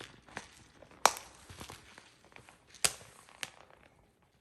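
A puppy chewing a Kong Pig chew toy, which gives sharp crunches and crackles as she bites. There are a few separate cracks, the loudest about a second in and near three seconds, with softer crackles between, dying away toward the end.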